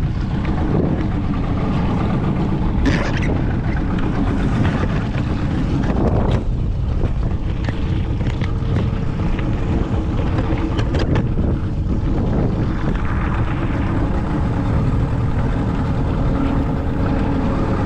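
Motorboat under way: its engine running steadily with wind buffeting the microphone, and a few short sharp knocks or splashes over the top.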